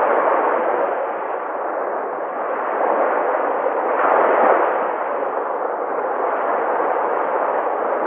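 Sea waves washing onto the shore: a continuous rushing surf that swells twice, about four seconds apart, as each wave breaks.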